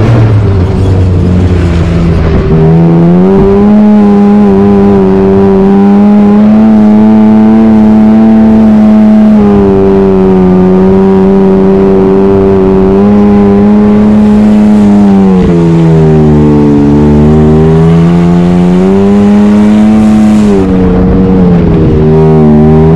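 Can-Am Maverick X3 Max's turbocharged three-cylinder engine running under load, heard from inside the cab. It holds a steady pitch, drops and climbs back about two thirds of the way through, and dips again near the end.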